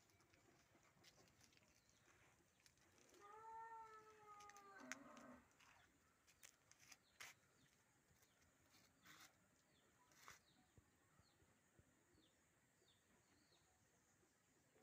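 Faint outdoor ambience in which a farm animal gives one drawn-out call about three seconds in, lasting roughly two seconds. Scattered clicks and a few soft, high bird chirps follow.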